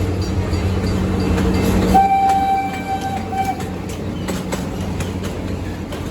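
Wildlife Express train rumbling, then one steady whistle blast of about a second and a half, followed by light clicking.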